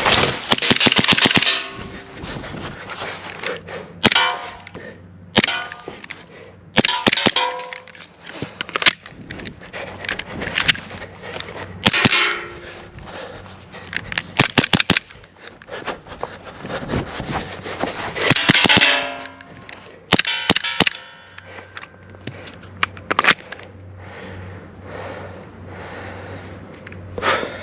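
Umarex Glock 19 Gen 4 gas blowback airsoft pistol firing in quick strings of sharp cracks, with metallic clanks and ringing among the shots. Between strings come quieter pauses for magazine changes.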